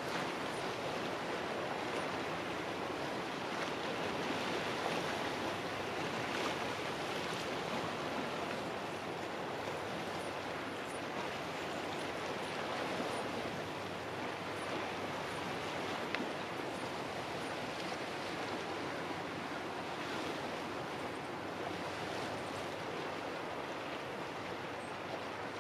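Steady wash of small waves on the shore, an even noise that doesn't change through the clip, with a few faint high chirps scattered through it.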